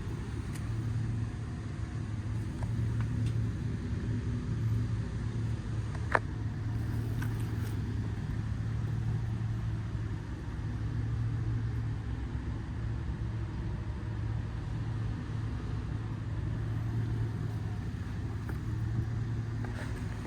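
A vehicle engine idling steadily with a low, even hum, and a single sharp click about six seconds in.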